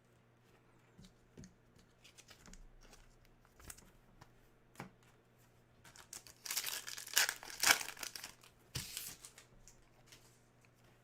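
A trading card pack wrapper being torn open and crinkled, loudest for a few seconds past the middle, with light clicks and taps from handling cards before it.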